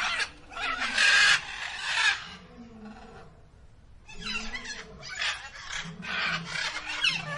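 Peafowl calling, harsh and rough, in two spells: one over the first two seconds and another from about four seconds in.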